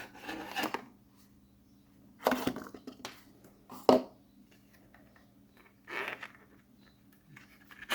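A flashlight's retail packaging being opened and handled: a few short crackling, rustling scrapes, with a sharp click about four seconds in.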